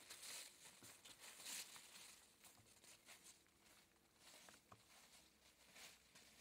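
Faint footsteps in dry fallen leaves: soft, irregular crackling and rustling, a little louder in the first couple of seconds.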